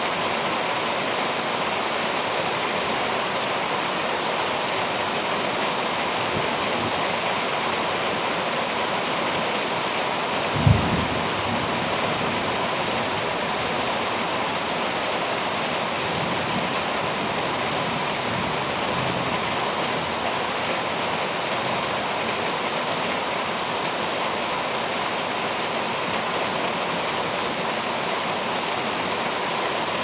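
Heavy tropical rain pouring steadily onto leaves and ground, an even rushing hiss. A single brief low thump stands out about ten seconds in.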